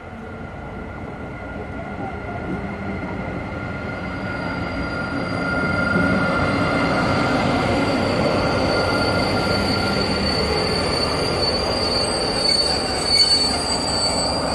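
A PKP Intercity SU160 diesel locomotive arriving with a passenger train, growing louder for about six seconds as it approaches and passes, then holding steady as the coaches roll by. Steady high-pitched squealing runs over the rumble as the train slows to a stop.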